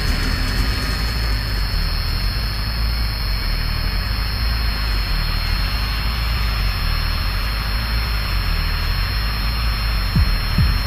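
Loud, steady wash of noise from a live rock stage, with a low drone beneath it. Deep thumps begin near the end.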